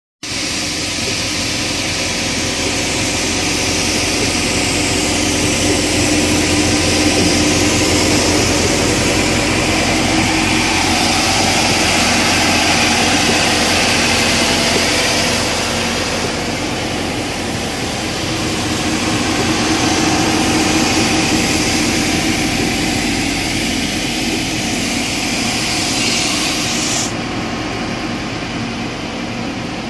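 Great Sanjay wide belt sanding machine running: a steady mechanical drone of motor hum with a loud hiss over it. The hiss drops away about three seconds before the end.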